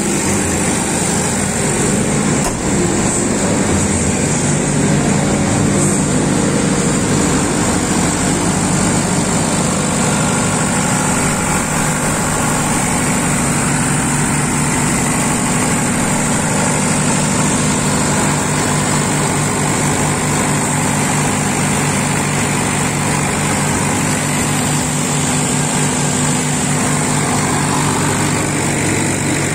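Mercedes diesel engine of a 50 kVA ADK generator set running at a constant speed on a test run, an even, unchanging engine drone with a steady low hum.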